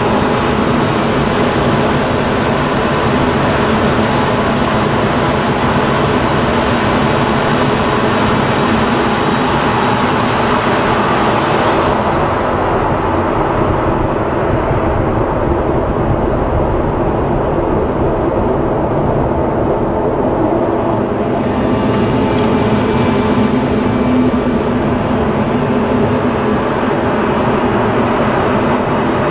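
F-16 fighter in aerobatic flight, heard inside the cockpit: a steady, loud rush of jet engine and airflow noise. About twelve seconds in, the upper hiss fades, and it comes back a few seconds past the twenty-second mark.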